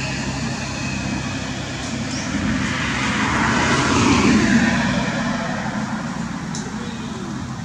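Steady engine drone of a passing motor, swelling to its loudest about four seconds in and then fading, its pitch dropping slightly as it goes.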